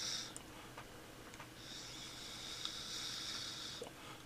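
Breathy hiss of a puff on an e-cigarette with a Gladius atomizer: one draw ends just after the start, then a second, longer hiss runs from about one and a half to four seconds in.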